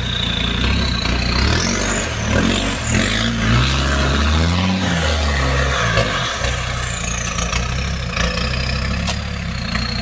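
Land Rover Discovery's engine running under load and revving up and down as the 4x4 drives through a muddy water hole and climbs the bank out of it. A high whine rises and then falls over the engine.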